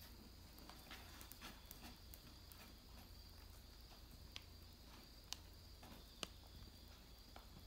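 Near silence with faint, scattered wet clicks of a black cat licking its fur while grooming, a few sharper clicks about a second apart past the middle.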